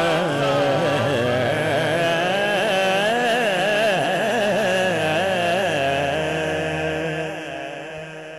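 A man singing a naat into a microphone: a long, wavering, ornamented phrase without words over a steady low drone, fading out near the end.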